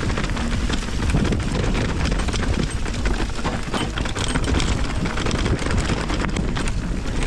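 Wind buffeting the microphone, with a steady low rumble and many scattered small clicks and rattles.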